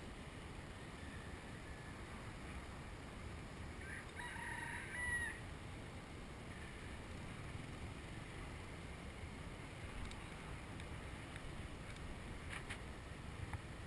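A rooster crowing once, about four seconds in, over steady wind and road noise from a moving bicycle.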